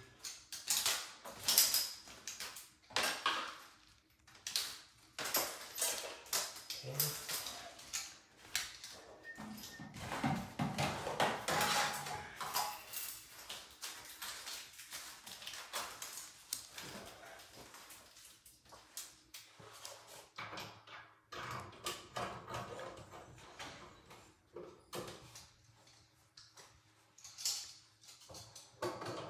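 Irregular clinks, rattles and rustling as metal dryer-vent parts are handled and pulled out of a cardboard box, with a busier stretch of clatter about a third of the way in.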